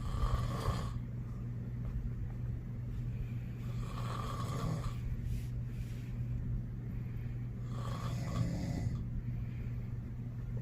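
A sleeping man snoring loudly: three long snores about four seconds apart, over a steady low hum.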